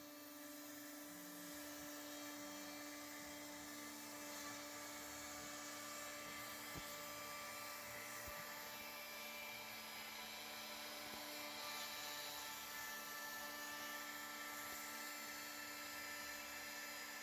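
CNC router spindle running at a constant speed and carving wood, a steady whine with a hiss of cutting.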